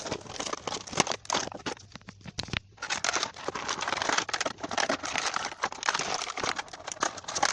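Toy box packaging being opened by hand: plastic and cardboard crinkling and tearing in a dense run of small crackles, with a short lull a little over two seconds in.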